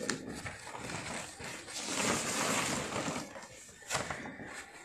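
Plastic and cardboard gift packaging rustling and crinkling as it is handled in an opened box, loudest about two seconds in, with a sharp knock near the end.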